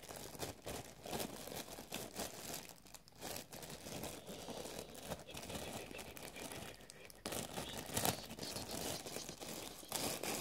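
Clear plastic packaging bag crinkling and rustling irregularly as it is opened and handled.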